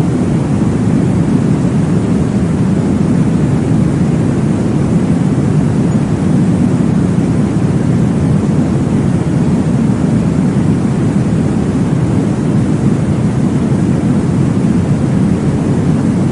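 Steady, loud, deep whooshing noise of a womb-style sleep-sound track for babies, with most of its weight low down and no clear beat or change.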